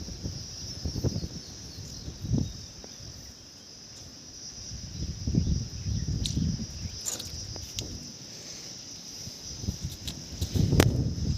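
A steady, high-pitched insect chorus, with low rumbles and a few soft knocks and clicks from the surroundings.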